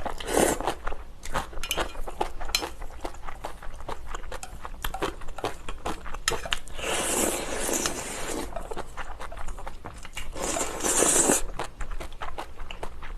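Close-miked eating: crisp crunching and chewing of kimchi with small ticks and clicks throughout, and two long noisy slurps of ramen noodles, one about seven seconds in and one about ten and a half seconds in.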